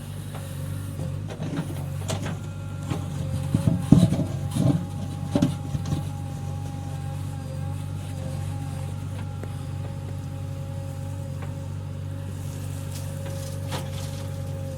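Diesel engine of a JCB 3DX backhoe loader running steadily, with a short cluster of metallic knocks and clanks about four to five seconds in.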